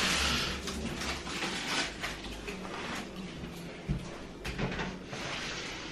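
Faint rustling and handling noise with two light clicks about four seconds in.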